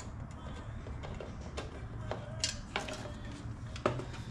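Light clicks and taps of hand tools and fingers on a dirt bike's aluminium radiator and its fittings as it is worked loose, about five sharp ticks scattered through the second half, over a low steady hum.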